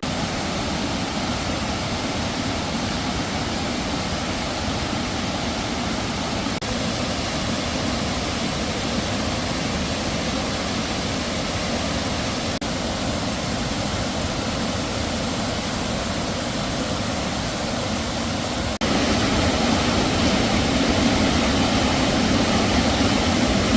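Steady rushing noise with no distinct tones, shifting abruptly about every six seconds and growing louder and fuller for the last few seconds.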